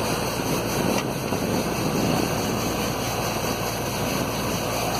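Borewell drilling rig running steadily, its air-driven drilling blowing wet cuttings and water out of the borehole in a loud, even noise.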